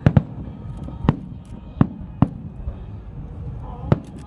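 Fireworks going off: about seven sharp bangs at uneven intervals, two close together at the start and two more near the end.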